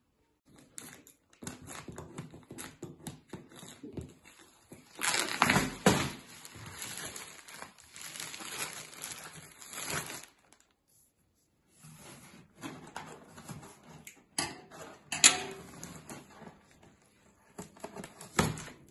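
Clear plastic wrap crinkling and crackling as it is pulled off a large cardboard vacuum cleaner box, with sharp clicks and rustles, then the cardboard lid being handled near the end.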